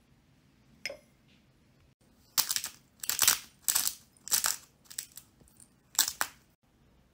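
Hand pepper mill grinding black peppercorns: a series of about seven short, gritty crunching bursts, roughly one every half second, one for each twist of the mill.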